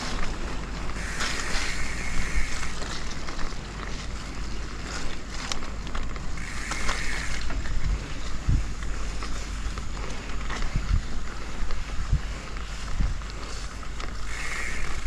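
Wind buffeting an action camera's microphone as a mountain bike rolls along a bumpy dirt and grass singletrack, with scattered knocks and rattles from the bike over the rough ground.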